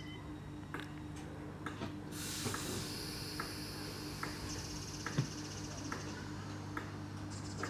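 British Rail Class 318 electric multiple unit standing at the platform, its equipment humming steadily, with a sharp tick a little under every second. About two seconds in a loud hiss starts, then thins to a fainter high hiss after a couple of seconds.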